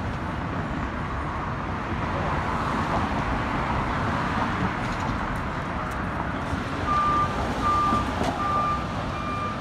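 City street traffic with cars driving past close by. About seven seconds in come four short, evenly spaced electronic beeps, like a vehicle's reversing alarm.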